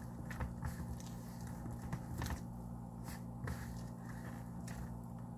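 Hands squeezing and pressing soft bread dough through flour in a plastic bowl, working the water into the flour: irregular soft squishes, scrapes and light knocks against the bowl. A steady low hum runs underneath.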